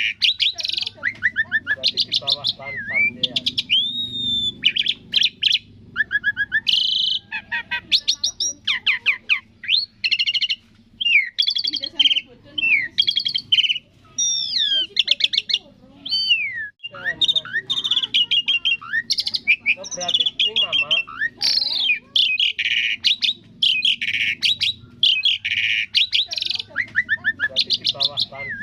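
Asian pied starling (jalak suren) singing a long, varied song: rapid chirps and trills mixed with rising and falling whistles, running on with only brief pauses.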